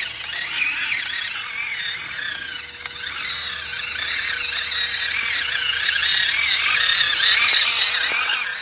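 Scale RC ATV's motor and drivetrain whining as it drives through mud, the high pitch wavering up and down with the throttle and growing louder over the last few seconds as it comes close.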